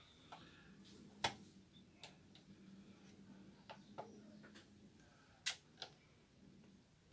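Quiet, with about nine sharp clicks scattered through it, the loudest about a second in and again about five and a half seconds in, over a faint steady low hum that fades out near the end.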